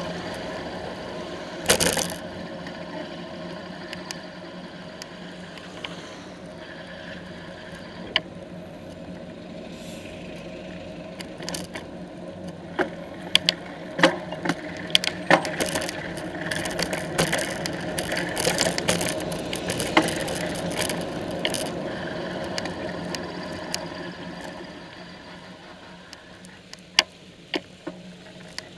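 Bicycle riding through slow town traffic, heard from a camera mounted on the bike: irregular clicks and rattles from the bike and camera mount over a steady hum of traffic. The clicks come thickest in the middle stretch.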